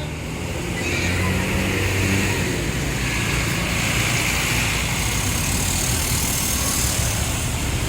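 Tour bus engine and road noise, a steady running rumble with no horn sounding.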